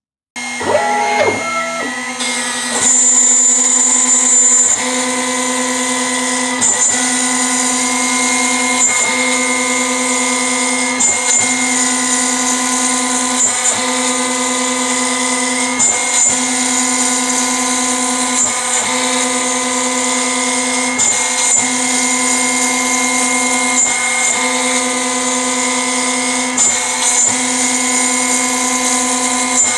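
CNC router's 1.5 kW VFD spindle cutting walnut with a tapered ballnose bit. It starts suddenly about half a second in, briefly rises in pitch, then runs as a steady whine with chip-cutting hiss, swelling briefly about every two seconds.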